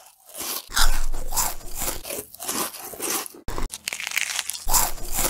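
People biting and chewing crunchy fried fast food close to the microphone: a quick run of crunches, several a second.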